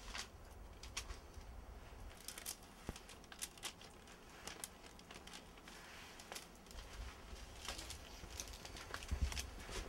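Faint rustling and crinkling of handled paper and clothing, with scattered light clicks over a low rumble.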